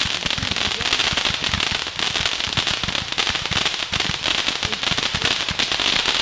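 Consumer firework barrage of Roman candle batteries and cakes firing: a rapid, continuous stream of launch pops and crackle, with no pause.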